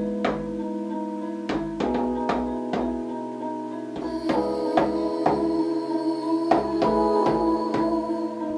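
Electronic music played live on a Native Instruments Maschine and keyboard: sustained chords and low bass notes under irregularly spaced drum hits.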